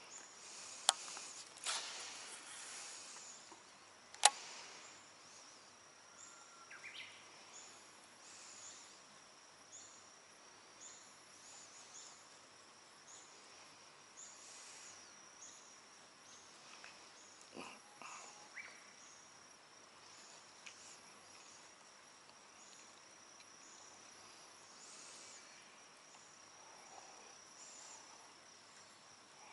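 Faint insects chirping: a steady high buzz with short high chirps repeating every second or so. Two sharp clicks come in the first few seconds.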